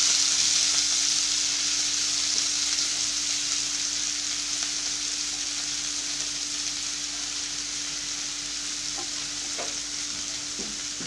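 Fresh chopped fenugreek (methi) leaves sizzling in hot oil in a non-stick frying pan, a steady hiss that slowly dies down as the wet leaves cook. A faint steady hum runs underneath, with a few faint ticks near the end.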